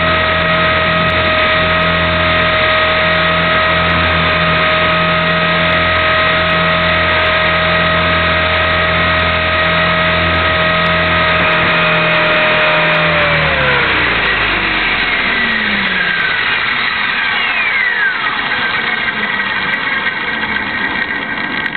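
Align T-Rex 450 Pro electric RC helicopter running at a steady head speed with a steady whine. About thirteen seconds in the power is cut and the whine falls away in pitch as the rotor spools down.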